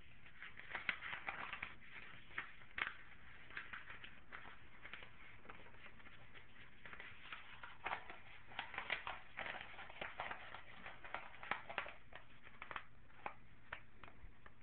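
White-bellied caique making faint, irregular clicks and taps with its beak, in scattered clusters of quick ticks.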